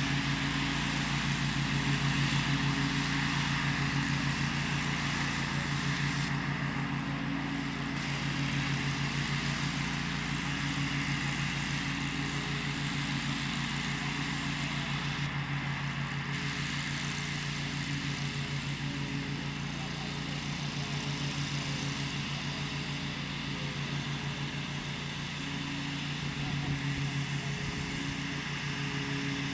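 Bad Boy 42-inch Rambler mower's engine running steadily while mowing, with a constant mechanical hum.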